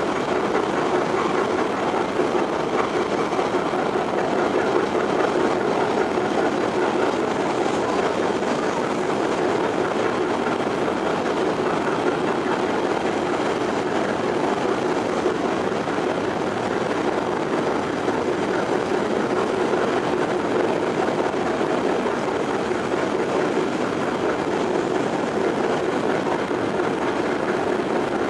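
Steady drone of a boat's engine under way, mixed with a continuous rush of wind and water, heard from on board.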